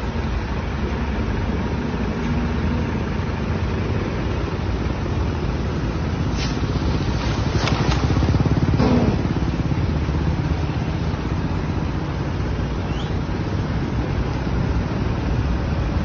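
Road traffic passing through floodwater: car, truck and motorcycle engines and tyres running through standing water, a steady low rumbling noise that swells slightly about halfway through.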